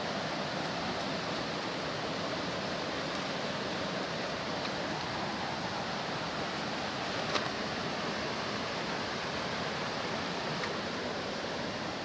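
Steady, even rushing of a waterfall, with one short click about seven seconds in.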